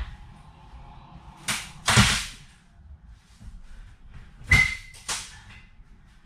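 Four sharp bangs in two pairs, from a school bus seat bottom being wrenched up off its metal frame; the third bang has a short metallic ring.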